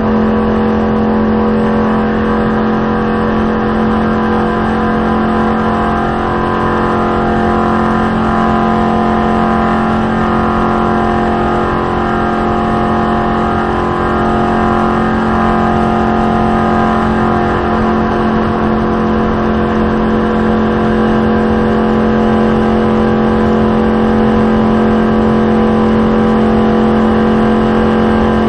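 Stock race car's V8 engine running flat out at a near-constant pitch, heard from inside the cockpit with road and wind noise under it. The pitch wavers slightly partway through, then settles again.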